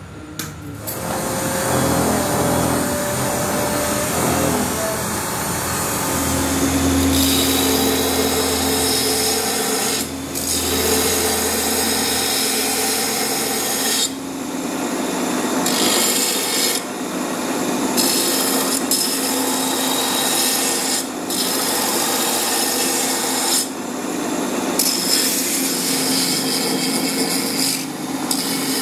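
Belt-driven sanding belt grinder running while a knife handle is ground against the belt: a steady rasping grind over the machine's hum, with the grinding breaking off briefly several times.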